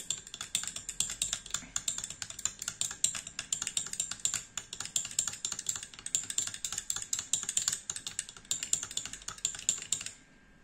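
Metal spoon stirring a liquid in a small glass jar, clinking quickly and steadily against the glass; it stops near the end.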